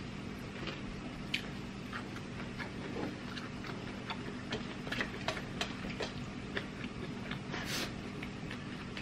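Close-up eating sounds: food being chewed, with scattered small wet clicks and smacks over a low steady hum. There is a brief breathy hiss shortly before the end.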